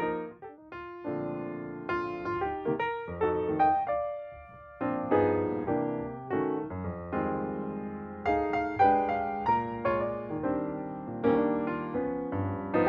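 Background music: a gentle piano or electric-piano tune of single notes over chords.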